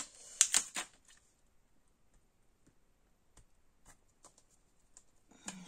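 Small clicks and taps from handling craft supplies on a tabletop: several sharp taps in the first second, then only a few faint ticks and a light rustle near the end.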